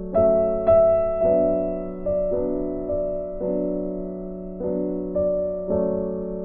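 Slow, gentle background piano music, with notes and chords struck about once a second, each fading away.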